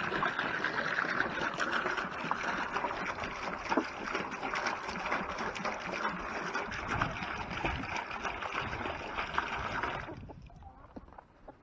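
Water pouring steadily into a livestock water trough, stopping and trailing off about ten seconds in.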